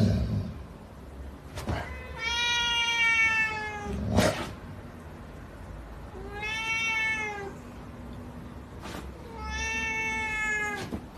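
A cat meowing three times, long drawn-out meows each more than a second long, with a few short knocks in between.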